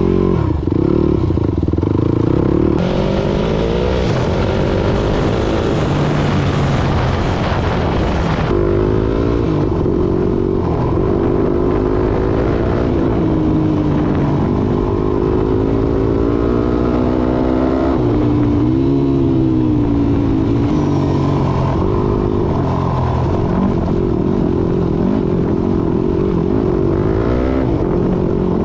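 Motorcycle engine running, its pitch rising and falling as the throttle varies. A hiss is layered over it from about three to eight seconds in.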